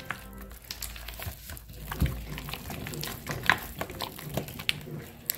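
Lard being beaten by hand in a plastic bowl: irregular squelches and slaps of the hand in the fat, with a few sharper smacks.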